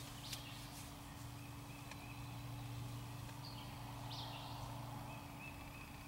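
Faint woodland ambience: distant songbirds giving thin, high steady notes several times and two short chirps, about a third of a second and about four seconds in, over a steady low hum.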